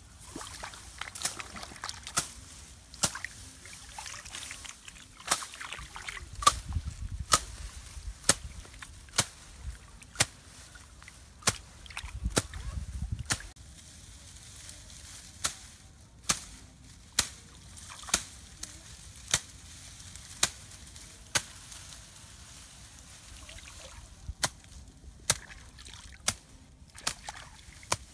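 Water sloshing and splashing, with sharp knocks coming about once a second, like a tool or hands working in wet mud. A low rumble runs through part of the first half.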